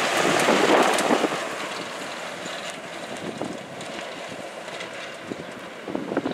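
Fire department tanker truck driving past on a gravel road: engine and tyres on gravel. It is loudest in the first second and fades as the truck pulls away.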